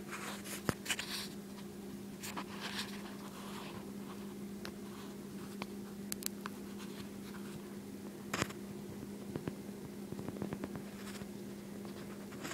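Scratchy rustling handling noise with a few sharp clicks, over a steady low hum.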